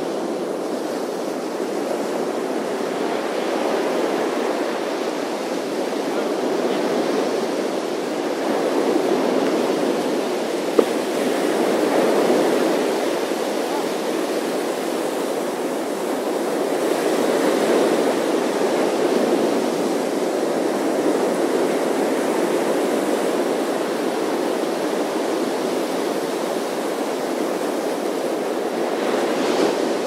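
Ocean surf breaking on a sandy beach: a continuous rush of water that swells and eases as successive waves break and wash up the shore. A single brief click about eleven seconds in.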